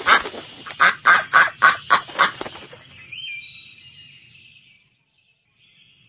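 Duck quacking: a quick run of about eight loud quacks in the first half, which then dies away.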